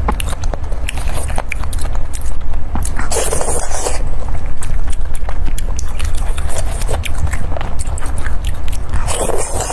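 Close-miked chewing and wet mouth sounds of a person eating skewered seafood in red chili oil, with many small clicks. Two louder hissing bursts come about three seconds in and again near the end.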